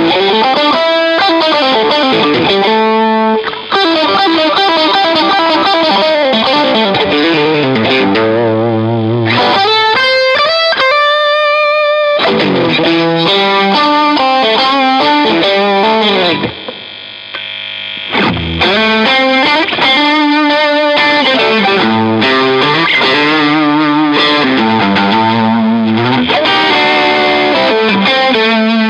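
Fender Custom Shop Master Grade 1961 Stratocaster electric guitar playing an overdriven melodic lead with string bends and vibrato, over a backing track.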